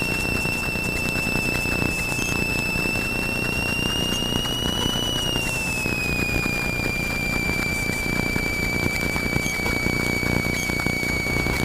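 Cessna 172 intercom audio dominated by a steady high-pitched electrical whine that rises a little and then drops slightly in pitch about five seconds in, over the low, steady noise of the engine running after touchdown.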